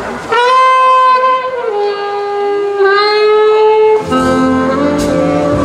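An alto saxophone plays the slow opening of a jazz ballad alone, holding long notes across two phrases. At about four seconds the full big band comes in under it.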